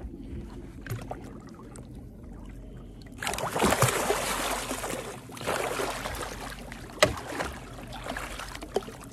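A large blue catfish thrashing at the surface alongside the boat while held by hand, with loud splashing and spray starting about three seconds in. There is a sharp knock about seven seconds in.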